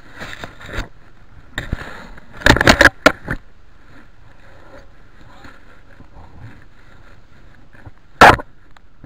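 Short bursts of rustling and scraping close to the microphone, a cluster in the first three seconds and the loudest one near the end, over a low steady background.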